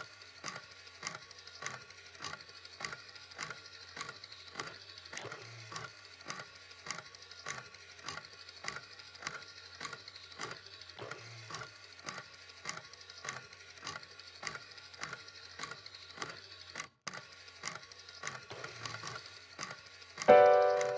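Steady, even ticking, about two clicks a second, over a low hum. Near the end a loud pitched note starts suddenly and rings on.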